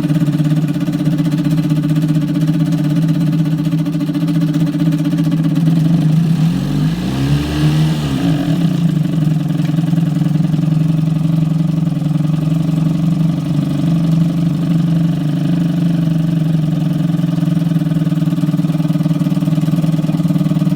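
1955 Johnson 3 hp two-stroke outboard motor running steadily, with a brief rise and fall in pitch about seven seconds in. It is running a little rough, choking on its own exhaust fumes.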